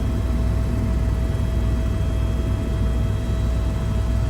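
EC130 ECO-Star helicopter in flight, heard from inside the cabin: a steady low rotor-and-turbine drone under even airflow noise, with a constant whine held throughout.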